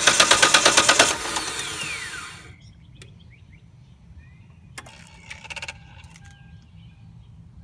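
A 2001 Mitsubishi Galant V6 being cranked when it won't start: a loud, rapid, even chattering of about ten pulses a second that does not catch, fading out with a falling whine about two seconds in. A shorter, weaker burst of clicks follows about five seconds in. The owner suspects the alternator.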